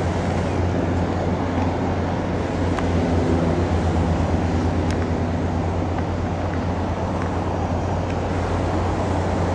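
Steady low mechanical drone of distant engine machinery, an even hum with no change in pace.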